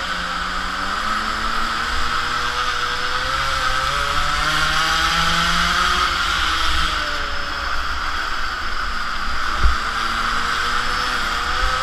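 Mini moto's small two-stroke engine heard onboard, its pitch rising and falling as the rider speeds up and eases off. A single thump about ten seconds in.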